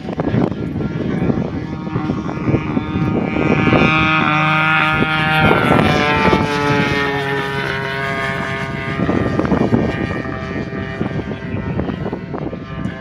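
Radio-controlled Hangar 9 Spitfire model's engine and propeller during a low fly-by. The engine note drops in pitch as the plane passes, about halfway through.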